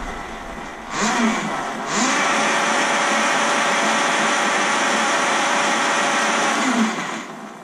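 Talaria TL 4000 electric motorbike's motor and drivetrain spinning the free rear wheel up under throttle about a second in. It then holds a steady whine at its 45 km/h road-legal speed limit for several seconds and winds down near the end as the throttle is let go.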